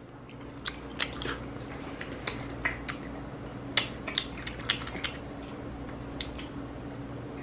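People eating pasta with forks: about a dozen sharp clicks and scrapes of forks on plates, with soft chewing, over a steady low hum.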